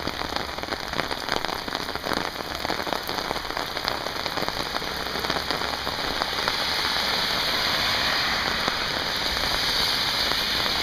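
Torrential rain pelting a flooded street: a dense hiss of drops on wet pavement and pooled water. It grows louder and steadier about two-thirds of the way through.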